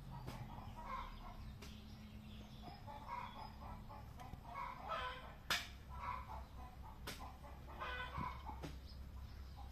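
Chickens clucking on and off, with two sharp clicks about five and a half and seven seconds in.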